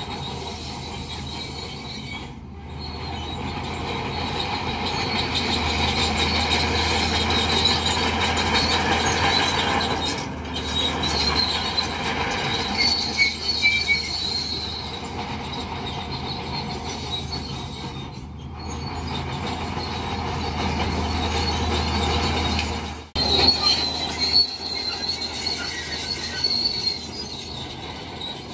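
Crawler bulldozer working: a steady low diesel engine hum under a high, wavering squeal from its steel tracks, swelling louder and fading as it pushes.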